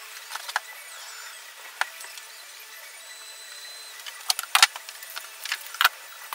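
Poplar plywood panels knocking and tapping as they are handled and set down on a wooden workbench. There are a few scattered knocks, then a quicker cluster of louder ones over the last two seconds.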